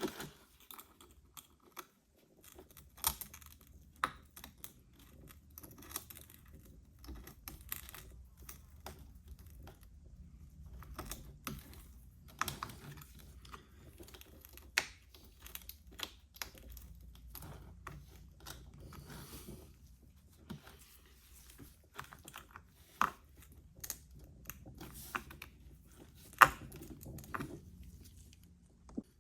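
Irregular sharp clicks and small crackles of hand tools picking at and prying the cracked back glass off an iPhone SE, some clicks much louder than others, over a faint low hum.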